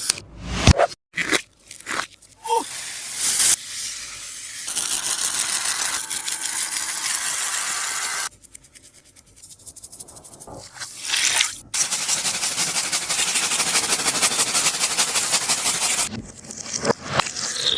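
Taba squishy being squeezed and pressed by hand: crinkly crunching in long, dense stretches, with a quieter pause in the middle and a few short clicks between.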